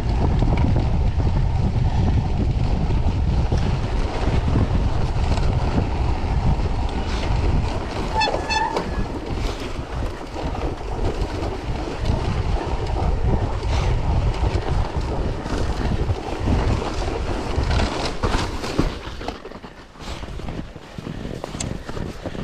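Wind rushing over an action camera's microphone, with a low rumble as a cyclocross bike rolls over packed snow. A brief pitched squeal comes about eight seconds in, and the rush eases near the end.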